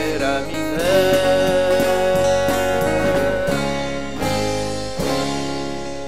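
Rock trio of guitar, bass and drums playing the instrumental close of a song. A held note slides up and holds over the drums, then the band hits three final chords, the last one left ringing and fading away.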